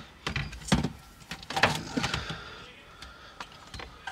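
Clicks, taps and scrapes of a Sony head unit and its mounting brackets being handled and offered up against the car's plastic dash console. Several sharp knocks come in the first two seconds, with fainter handling noise after.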